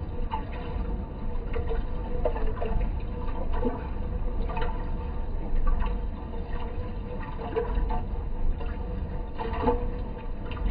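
Water rushing and splashing inside a washing machine, over a steady hum, with irregular sloshes throughout.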